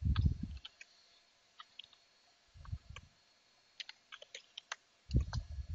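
Computer keyboard keys clicking irregularly as a command is typed, with three dull low thumps: at the start, about halfway and near the end.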